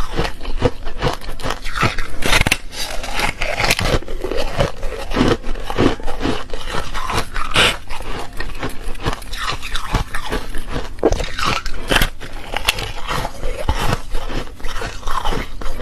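Refrozen foam ice being bitten and chewed, giving continuous crunching and crackling, with many sharp crunches close together.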